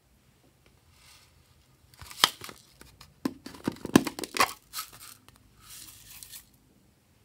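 Thin plastic gem-shaped container crackling and clicking sharply as it is handled and opened, then a soft rustle of sequins sliding out of it onto slime.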